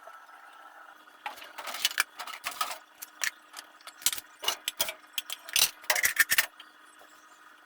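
Household items clinking and clattering as they are handled and set down: a run of sharp knocks and jingles lasting about five seconds, over a faint steady hum.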